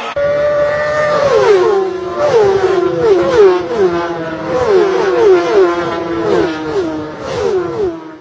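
High-revving racing engines: a high engine note that keeps dropping in pitch, roughly twice a second, over a steady lower drone.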